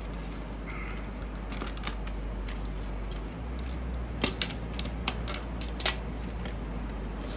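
Small clicks and knocks of a plastic printhead cleaning cassette and its spindle being handled as the used cleaning cloth is pulled off, with a few sharp clicks in the second half.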